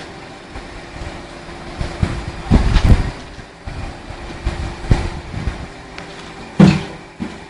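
Fine-stone concrete pump running with a steady mechanical hum, broken by several heavy knocks: a cluster about two and a half seconds in, another near the middle and a sharp one near the end.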